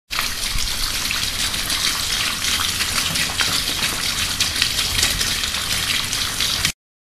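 Water running from a tap into a washbasin in a steady stream. It starts abruptly and cuts off suddenly near the end.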